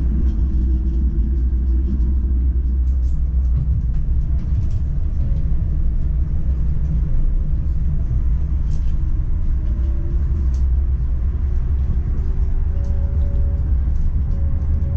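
PESA Swing 122NbT low-floor tram running on the track, heard from the driver's cab: a steady low rumble, with a faint whine that climbs in pitch in the second half and light scattered ticks.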